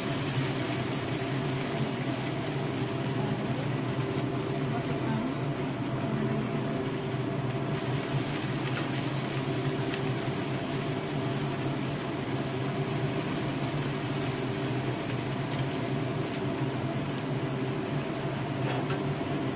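Shrimp and lily bulb petals frying in oil in a wok, a steady sizzle under a constant mechanical hum.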